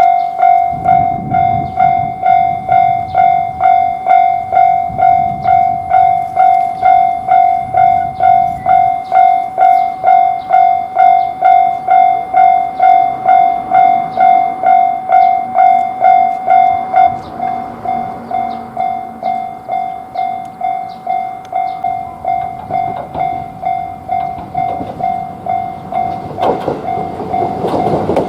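Railroad crossing warning bell (the Japanese "kan-kan") ringing at an even rate of about two strikes a second, one clear tone, growing softer about two-thirds of the way through. Near the end a train's noise rises as it approaches the crossing.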